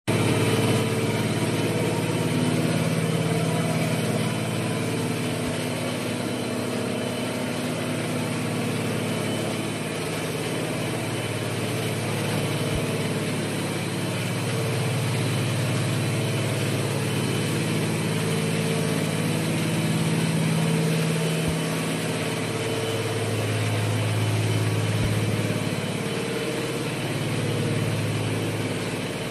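Sludge-drying plant machinery running: a steady mechanical hum and whir from motors and pumps, with a low drone that shifts a little in pitch now and then.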